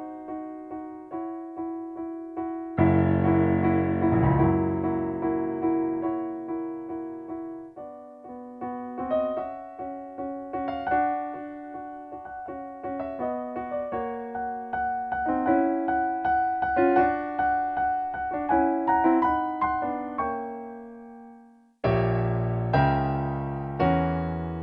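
Background piano music: a keyboard melody over chords. Near the end it fades away, and after a short break a new phrase of chords begins.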